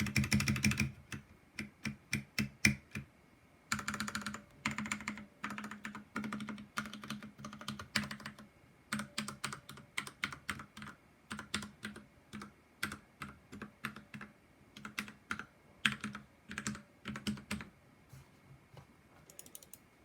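Drevo Calibur V2 60% mechanical keyboard with Krytox 205g0-lubed Outemu Red linear switches and stock keycaps, being typed on. Fast runs of keystrokes alternate with pauses and single key presses, thinning out near the end.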